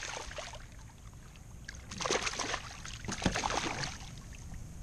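Hooked trout thrashing at the surface beside a kayak, splashing the water in two bursts, about two and three seconds in.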